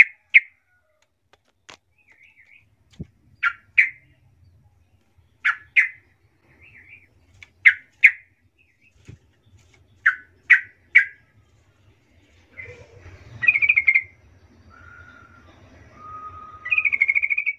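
Yellow-vented bulbul calling: short, sharp chirps in twos and threes every couple of seconds, then from about two-thirds of the way in a longer bubbly song phrase, and another near the end. It is a lure call meant to draw an answer from other bulbuls.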